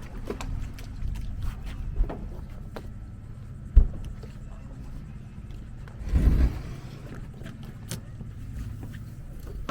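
A dinghy being handled while water is emptied out of it: scattered knocks, one sharp thump about four seconds in, and a brief rushing splash about six seconds in, over a steady low hum.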